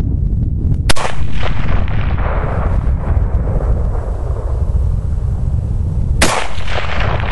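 Two rifle shots from an SVT-40 Tokarev semi-automatic firing 7.62x54R, about five seconds apart, each followed by a long rolling echo. Heavy wind rumbles on the microphone throughout.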